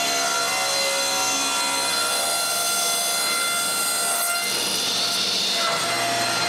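Electric woodworking saw running steadily and cutting wood, with the tone of the cut shifting about four and a half seconds in.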